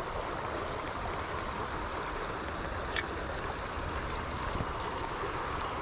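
Steady rush of a shallow creek flowing over rocky riffles, with a few faint clicks about halfway through.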